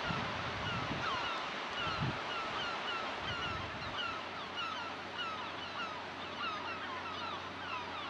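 A crowd of gulls calling without pause, short falling cries overlapping several times a second, over a steady wash of surf. A few low buffets of wind on the microphone come in the first couple of seconds.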